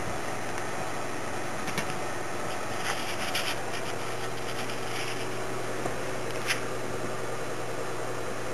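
Faint scratching and rubbing of a cat's fur and paws on carpet as it rolls about, with a few light clicks, over a steady hiss and low hum.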